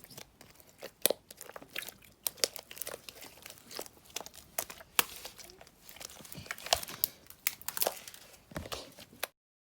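Slime being handled and squished, giving an irregular run of sharp crackles and clicks that cuts off suddenly near the end.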